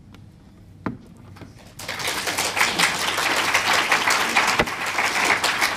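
Audience applauding, starting about two seconds in after a quiet moment with a single light knock.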